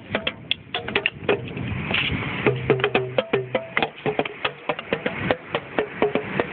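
Small belt-mounted drums and found objects being struck in a fast, uneven rhythm, several sharp hits a second, some leaving a short ringing tone.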